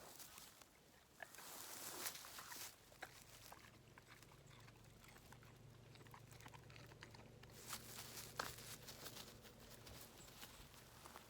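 Dog crunching and chewing a piece of half-raw carrot: faint irregular crunches and clicks of teeth.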